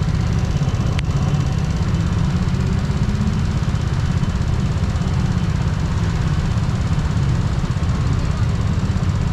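Yamaha Cygnus X scooter's single-cylinder engine running while riding, under a heavy, steady low rumble, with one sharp click about a second in.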